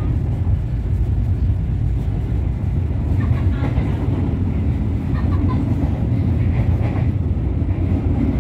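Steady low rumble of a train, with faint voices in the background.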